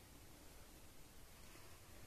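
Near silence: faint room tone with a low, steady hiss.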